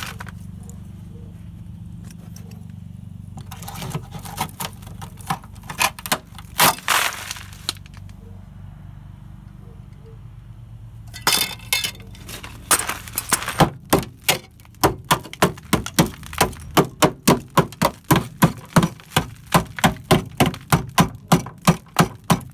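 Hammer striking the rusted sheet-steel rocker panel of a van, with scattered knocks and crunching of rotten metal breaking away in the first half, then a fast, steady run of blows about three or four a second. A steady low hum runs underneath.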